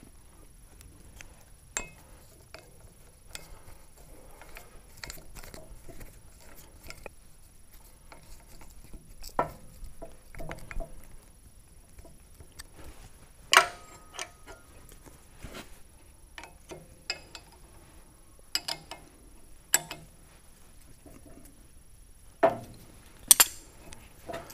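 Irregular metal clinks, taps and knocks from parts and a hand tool being handled while a handle is fitted to an arbor press's hand wheel. Two sharp clanks, one about halfway and one near the end, are the loudest.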